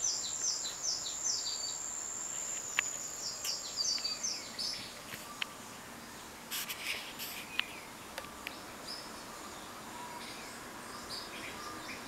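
Recorded birdsong played from a bird DVD for cats: a run of quick, repeated falling chirps, about three a second, over a steady high-pitched buzz that stops a little over four seconds in. After that come scattered chirps and calls with a few sharp ticks.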